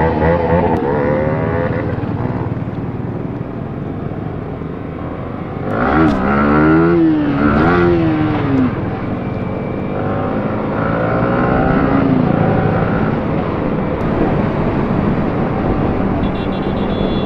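Motorcycle engines accelerating through the gears on a group ride, with wind rushing over the microphone. The engine pitch climbs and falls with each gear, and the loudest rev rises and drops again about six to eight seconds in.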